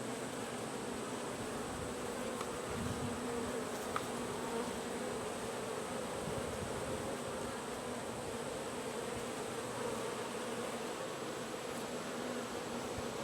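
Honey bees buzzing around an open hive during an inspection: a steady, even hum, with one light click about four seconds in.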